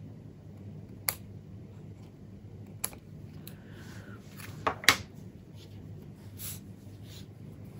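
Small craft scissors snipping excess paper off the edge of a card, a handful of short sharp snips and clicks spread out, the loudest pair near the middle as the card and scissors are handled and put down on a cutting mat. A steady low hum runs underneath.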